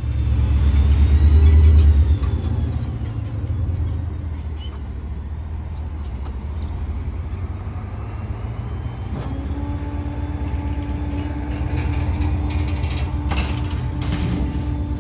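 Small rear-loader garbage truck's engine running, louder for the first two seconds and then settling to a steady idle. About nine seconds in a steady whine joins it, with a few knocks near the end.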